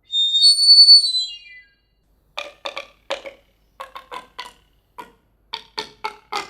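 A falling whistle-like tone sliding down in pitch, then a string of irregular hollow knocks with a woody ring, about a dozen taps in uneven groups: household objects played as foley sound effects.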